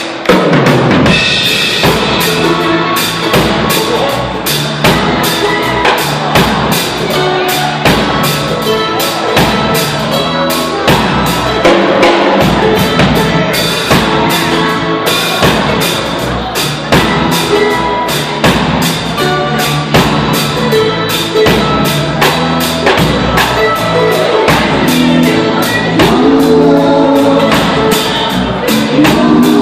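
Live band playing a reggae groove: a drum kit keeps a steady beat under guitars and bass. Recorded through a cellphone microphone.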